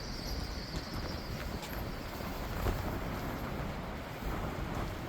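Outdoor street ambience: a steady low rumble of traffic and wind on the microphone, with a few faint clicks.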